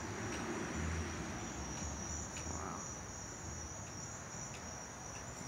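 Outdoor insect chorus: a steady, high-pitched trilling that does not let up, over a low rumble.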